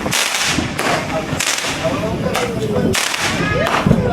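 Fireworks going off in a string of about six sharp cracks, roughly one every three-quarters of a second.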